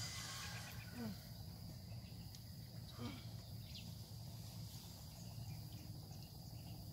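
Faint outdoor ambience with insects trilling steadily on one high note, and two soft sounds of disturbed water about one and three seconds in.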